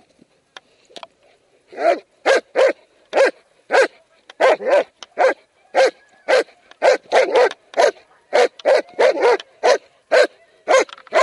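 A large shepherd-type dog on a leash barking aggressively at a protection-training decoy: after about two seconds of near quiet, a rapid string of loud barks, two or three a second.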